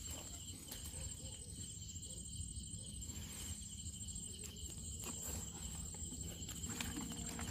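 Insects chirring steadily in the mangrove, a high continuous trill that breaks off briefly about three seconds in, over a low rumble.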